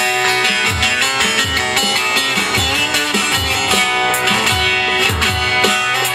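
Instrumental passage of a Turkish folk-style song: plucked string instruments playing over a recurring low beat, with no singing.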